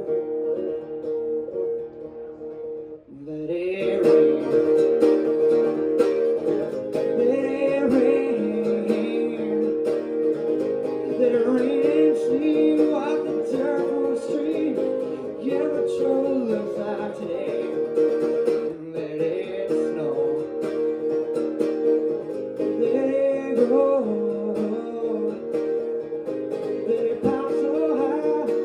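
Steel-string acoustic guitar playing a blues tune, with a man's voice singing over it. The music drops away briefly about three seconds in, then picks up again.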